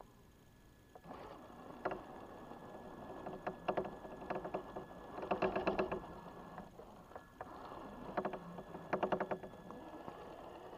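Traxxas TRX-4 RC crawler climbing a steep grassy slope: bursts of rapid clicking as its wheels claw at the ground, loudest about halfway through and again later, over a faint steady high tone.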